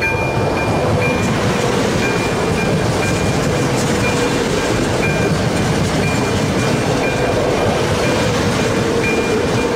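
ČD RegioPanter electric multiple unit passing close by over the level crossing, its wheels and running gear making a loud, steady rush. Over it the crossing's AŽD71 warning signals ring their second-generation electronic bell, a high ding repeating at a quick, regular pace.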